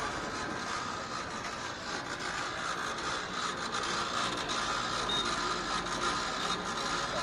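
Street popcorn machine running: a steady mechanical whirr with many small scattered clicks.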